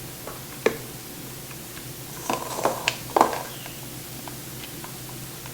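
A few soft knocks and scrapes of a spatula against a mixing bowl as thick carrot cake batter is poured and scraped into a cake pan, most of them about halfway through, over a steady low hum.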